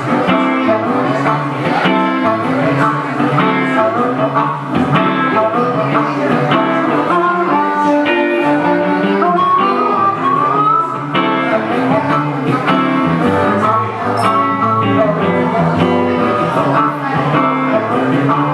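Instrumental blues on electric guitar and harmonica. The guitar keeps a steady rhythm while the harmonica, played close into a microphone, carries the lead with long sliding notes about halfway through.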